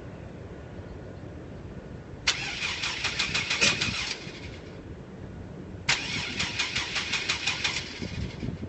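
GMC Safari van's starter cranking the engine in two tries of about two seconds each, a fast rhythmic churn that never catches: a no-start, which the owner blames on water in the fuel tank after rain.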